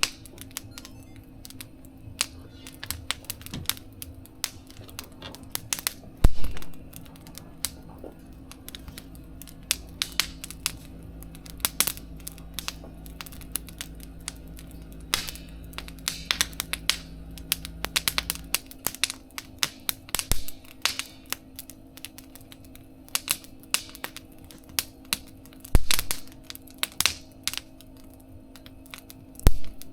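Wood fire in a mesh fire-pit stove crackling and popping irregularly, with a few louder pops, over a steady low hum.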